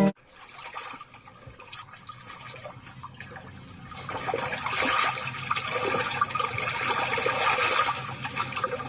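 Rushing, splashing water with no music, faint at first and growing louder about halfway through.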